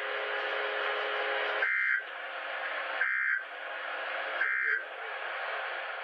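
EAS end-of-message data bursts on a National Weather Service weather radio broadcast: three short, buzzy two-tone digital bursts about 1.4 seconds apart over steady radio hiss. They mark the close of the Required Weekly Test.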